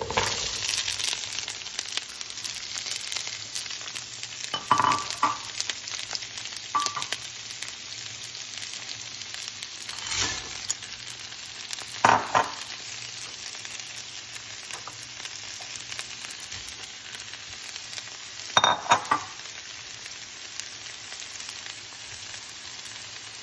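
Green beans sizzling in hot oil with softened onion and garlic in a non-stick frying pan. The sizzle jumps up sharply at the start as the beans go in. A few louder knocks and scrapes come from the stirring utensil against the pan.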